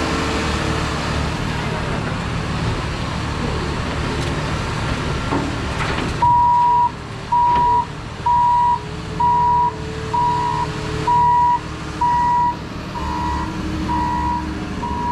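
A vehicle's backup alarm starts about six seconds in, beeping about once a second in a flat, even tone. Before it there is a steady rush of vehicle noise.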